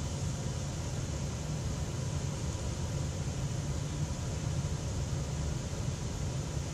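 Steady low rumbling hum of background noise, even throughout, with no distinct events.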